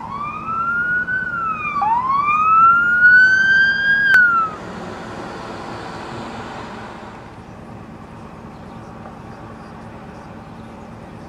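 Fire department SUV's electronic siren sweeping up and down in pitch, then cutting off about four and a half seconds in. The vehicle then rushes past, engine and tyres fading into steady traffic noise.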